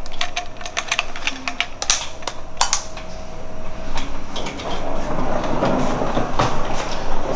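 Clicks and rattles from a hotel room door being opened, over the first few seconds, then a steadier rushing noise.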